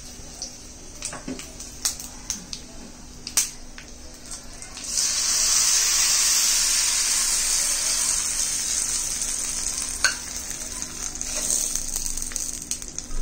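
Hot oil tempering of mustard seeds, curry leaves, urad dal and dried red chillies. A few scattered pops sound while the pan is swirled; about five seconds in, a loud sizzle starts as the tadka is poured onto coconut chutney, then slowly dies down. A single sharp click comes about ten seconds in.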